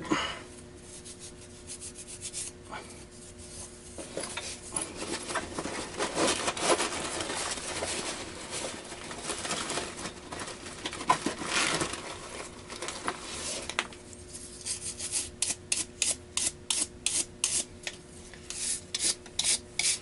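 Scrubbing deposits off the metal plate of a Lennox pulse furnace's air flapper valve by hand: irregular rubbing strokes that settle into a quick, even back-and-forth of about three strokes a second near the end. The deposits are cleaned off so the flapper keeps its gap and can open and close freely.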